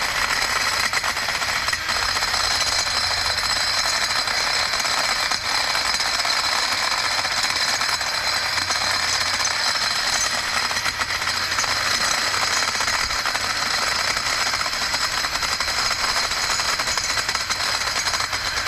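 Ryobi 18V cordless cultivator running continuously, its electric motor giving a steady high whine while the tines chop into hard, dry clay with gravel in it.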